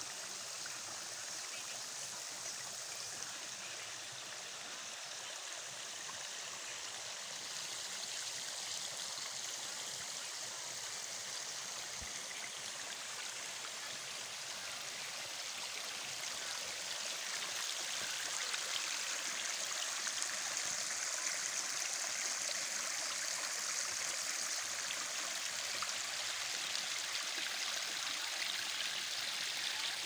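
Shallow stream running over stones: a steady rush of water that grows a little louder past the middle.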